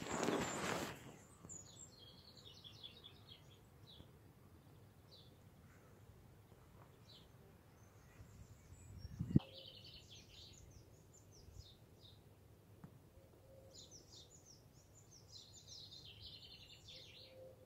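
Faint birdsong: several short twittering phrases of chirps, with a single sharp knock about halfway through and a brief rustle at the very start.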